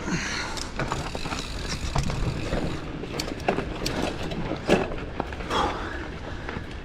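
Giant Fathom mountain bike riding over a rough dirt trail: a steady rush of tyre and wind noise with irregular clicks and knocks from the bike rattling over bumps.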